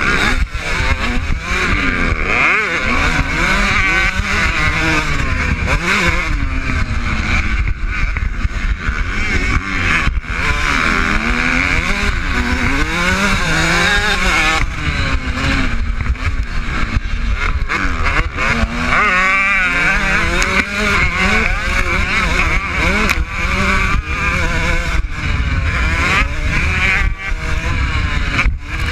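Kawasaki KX125 125cc two-stroke single-cylinder motocross engine, heard from on the bike, revving up and dropping back over and over as the rider accelerates, shifts and rolls off for corners and jumps.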